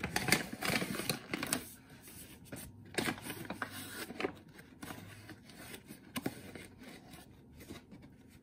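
Clinks, scrapes and rustling from a metal measuring cup being dipped into a paper bag of bread flour to scoop the next cupful. The handling noise is busiest in the first second and a half and again about three seconds in.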